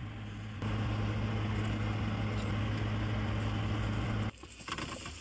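Air fryer running: a steady fan hum with a low drone. It steps up in level about half a second in and cuts off suddenly near the end.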